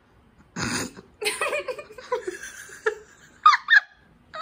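People laughing and giggling, with two short high-pitched squeals near the end.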